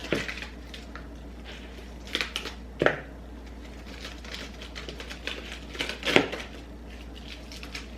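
Kitchen items being handled while lunches are packed: a run of light clicks and taps, with sharper knocks about two seconds in, near three seconds and around six seconds.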